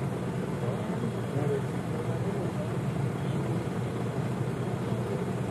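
Steady low rumble of background noise, like a distant engine or traffic, unchanging throughout.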